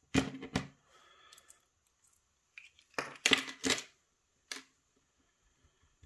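Metal lock parts clicking and clacking against each other and against a plastic tray as a pin-tumbler lock cylinder is taken apart by hand: two sharp clicks near the start, a quick cluster of clacks about three seconds in, and one more click a little later.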